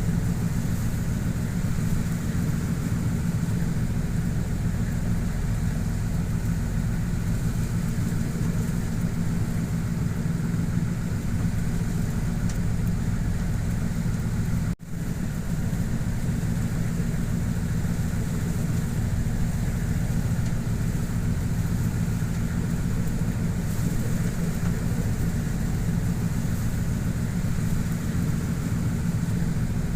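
Boat engine running steadily, a low even hum, with a steady hiss over it; the sound drops out for an instant about halfway.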